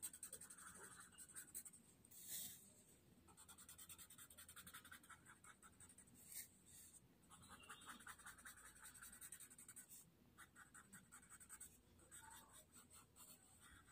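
Paper blending stump (tortillon) rubbing graphite into a Zentangle paper tile. Faint, quick back-and-forth scratchy strokes come in short runs with brief pauses between them.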